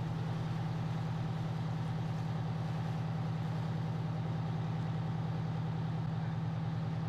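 Fire engine idling steadily at close range: a low, even engine hum with a faint steady higher tone above it.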